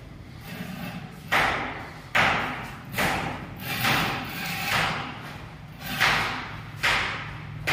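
Steel mason's trowel scraping and smoothing cement mortar along the edge of a floor chamber opening, in regular strokes about one every 0.8 seconds, each starting sharply and fading out.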